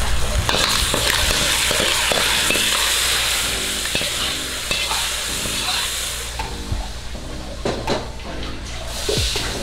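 Clams and sauce sizzling in a hot wok as a metal ladle scrapes them out onto the plate, with clinks of the ladle against the wok. The sizzle fades after about six seconds.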